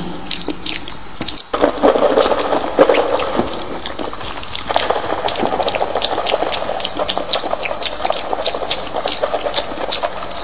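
Eating sounds from many mouths layered together: chewing and mouth noises with a dense run of sharp clicks. They break off briefly about a second and a half in, then pick up again.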